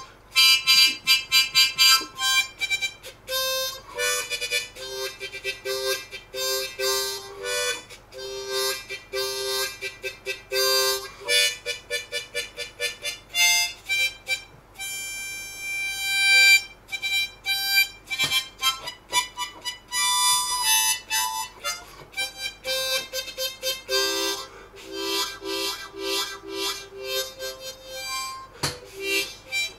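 Background music: a harmonica tune of quick, short notes, with one longer held note about halfway through.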